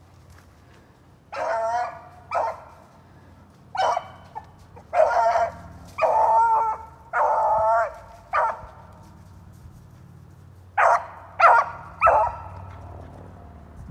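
A beagle baying on a rabbit's trail: about ten loud bays, some long and drawn out, others short and chopped, with a short pause before the last three.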